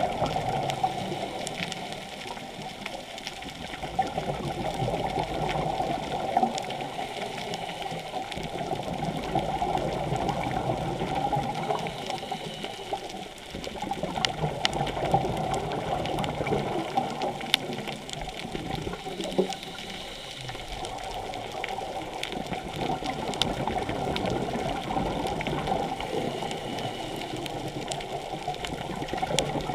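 Muffled water noise heard underwater, swelling and fading every few seconds, with scattered sharp clicks.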